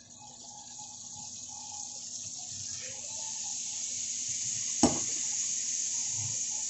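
Dark sauce poured into a hot non-stick frying pan, sizzling: a hiss that builds over the first few seconds and then holds steady. One sharp clack about five seconds in.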